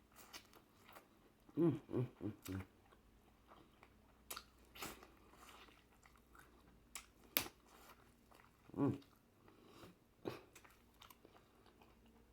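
Close-miked mouth sounds of someone eating seafood boil: soft chewing with scattered sharp clicks and smacks, and short hums of enjoyment, a cluster about two seconds in and another near nine seconds.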